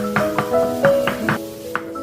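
Background music: a light melody of short, quickly struck notes, each ringing on briefly, coming several a second and thinning out near the end.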